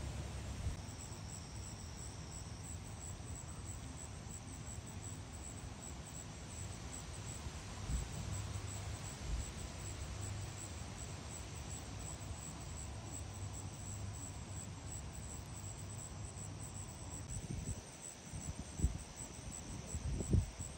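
Insects chirping in a high, even, rapid pulse that keeps up throughout, over a low rumble with a few soft low thumps, the strongest near the end.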